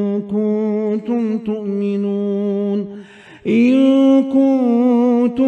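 Quran recited in Arabic by a single voice, chanted melodically with long held, slowly wavering notes. The voice breaks for a breath about three seconds in, then takes up the next phrase on a new sustained note.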